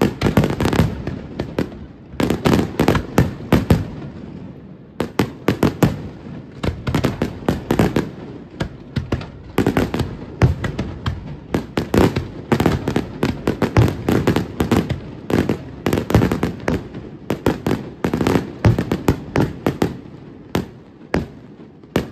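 Aerial firework shells bursting in quick succession in a professional display: dense volleys of sharp bangs and cracks, several a second, with short lulls in the first few seconds.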